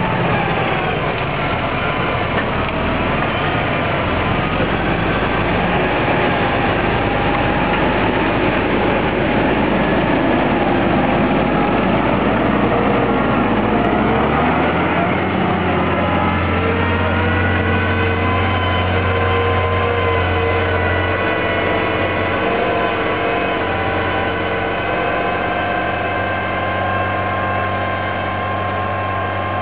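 A tractor's diesel engine runs steadily under load while pulling an Agrisem Cultiplow deep-tillage cultivator through the soil. About halfway through, the sound changes abruptly into a steadier drone with several held tones.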